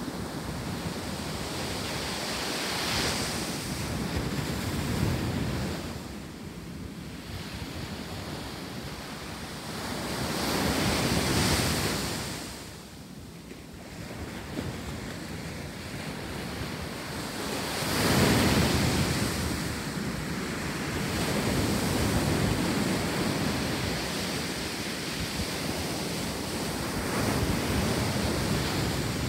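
Ocean surf on a sandy beach: waves breaking and washing in, rising and falling in swells every few seconds.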